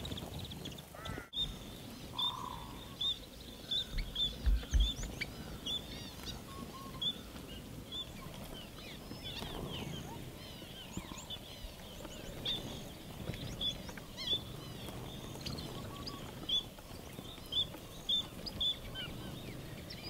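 A flock of Gouldian finches calling with short, high chirps, one repeated call recurring about once or twice a second among scattered softer twitters. A few low thumps about four seconds in.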